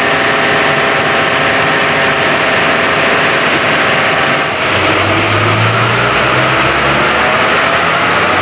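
Fiat Ducato 2.5-litre turbo-diesel engine running on a chassis dynamometer during its warm-up, steady at first. About halfway through, a high whine starts and rises steadily as speed builds.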